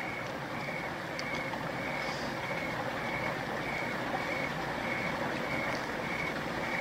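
Night-time ambience of a cricket chirping steadily: short, high, evenly spaced chirps a little under twice a second, over a steady background hiss.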